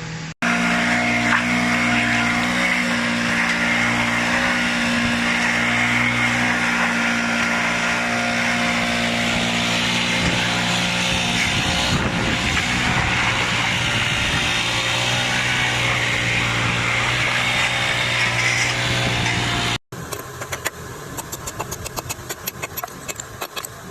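A machine running steadily, a constant mechanical hum with a noisy whir over it, which cuts off abruptly near the end. After it comes a quieter run of rapid clicking.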